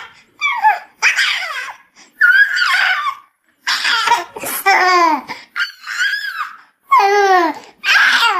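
A baby laughing and squealing in a string of short, high-pitched bursts, many of them falling in pitch, with brief gaps between.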